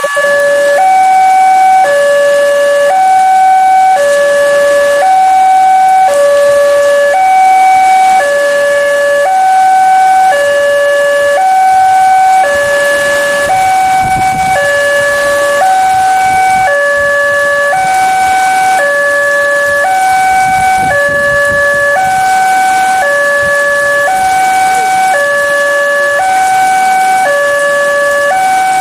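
Railway level-crossing warning alarm: an electronic two-tone sounder alternating a higher and a lower note, about a second each, in a steady repeating cycle. It signals that a train is approaching and the crossing is closing.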